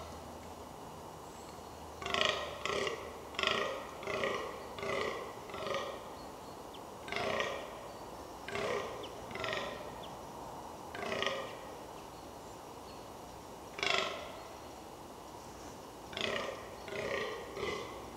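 Fallow deer buck giving its rutting groan: short, deep, belch-like calls. A quick run of about six comes a couple of seconds in, then a few single calls spaced a second or two apart, then another quick run near the end.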